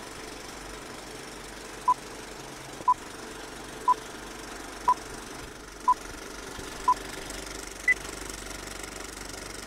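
Film-leader countdown beeps: six short beeps one second apart, then a seventh beep an octave higher (the two-pop), over a steady hiss.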